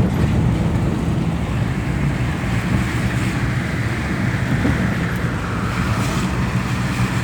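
Steady engine hum and road noise of a car driving, with wind rushing past.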